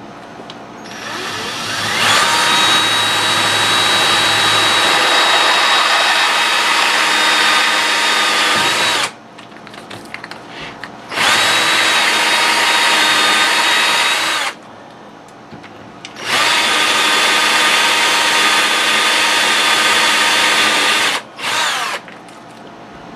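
Cordless drill boring out a small metal tube with a D-size (0.246 in) twist bit to make a tubing adapter. The motor spins up over the first two seconds, then runs in three long stretches of several seconds each with short pauses between them, and a brief final spurt near the end.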